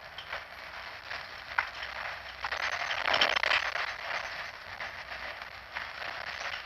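A person on a bus clearing their throat with a raspy burst about three seconds in, among light clicks and rattles from the bus.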